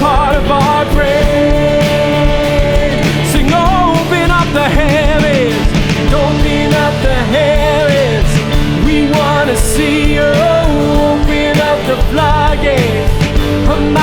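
Live contemporary worship band playing a rock-style song, with drums and a full band under a sung vocal line with vibrato.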